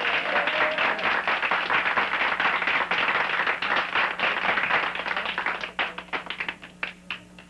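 Audience of children applauding, a dense patter of clapping that thins to scattered single claps over the last two seconds and dies out.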